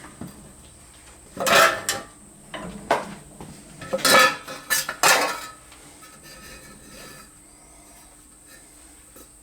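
Thin stainless steel sheet clanking and rattling against metal as it is worked and bent into a bracket. There are loud clusters of clanks with a short ring about a second and a half in and again around four to five seconds, then quieter ticks.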